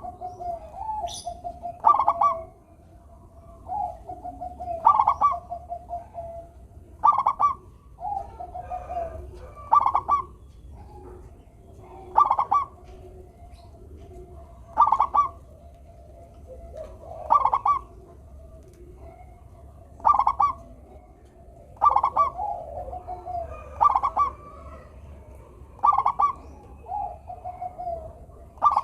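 Zebra dove (perkutut) cooing: short, loud coo phrases repeated about every two to two and a half seconds, with softer drawn-out coos in between.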